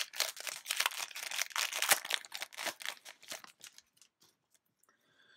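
Foil Yu-Gi-Oh booster pack wrapper crinkling and tearing as it is opened: a dense crackling rustle for about three and a half seconds, then a few scattered clicks.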